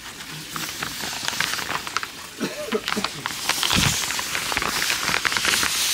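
Plastic greenhouse sheeting crackling and rustling against the recording phone, dense small crackles that grow busier about halfway through.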